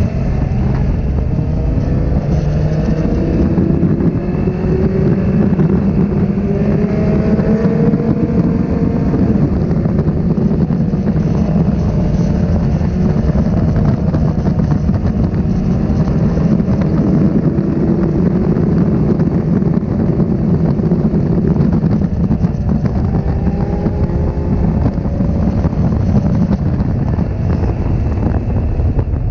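Honda CB1300's inline-four engine running hard under way, its pitch rising again and again as it accelerates through the gears, heard from on board the bike.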